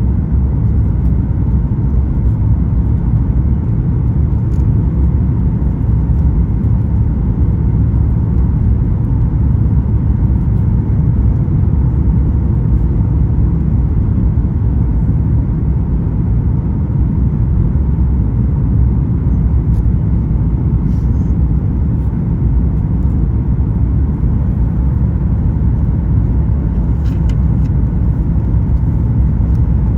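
Steady low rumble of cabin noise inside a Boeing 737 MAX 9 airliner: its CFM LEAP-1B engines and the airflow over the fuselage, heard from a seat behind the wing.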